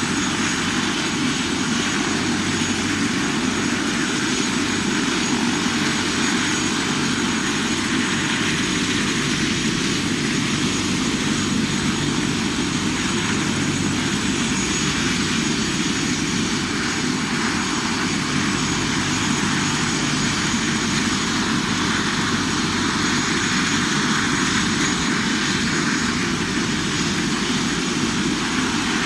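Helicopter running on the ground with its rotor turning, a steady noise with a faint high whine.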